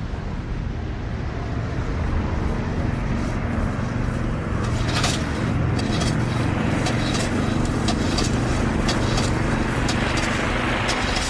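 PBY Catalina flying boat's twin radial piston engines droning at low level over the water, with the rush of spray from its hull skimming the lake surface. The sound grows louder over the first few seconds as the plane closes in, then holds steady.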